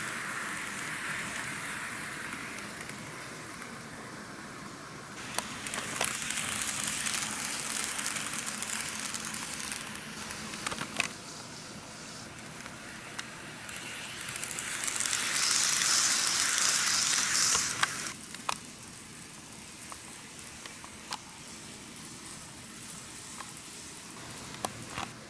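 N gauge model trains running on the track: a hissing, crackling rattle of wheels and motor with scattered sharp clicks. It swells loudest for a few seconds past the middle, then settles lower.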